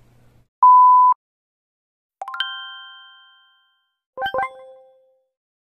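Edited-in sound effects: a short, loud, steady electronic beep, then about two seconds in a bell-like chime that rings out and fades over about a second, then two quick chime notes about four seconds in.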